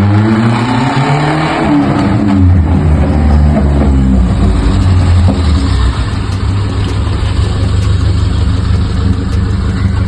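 Suzuki Alto engine revved up over a couple of seconds, let back down, then running steadily.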